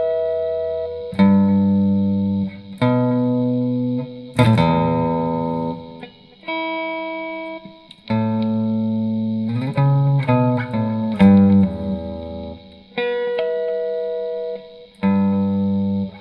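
Electric guitar through an effects unit playing a rock chord part. Chords are held for a second or two each and then cut off, with short pauses and the pick audible between them.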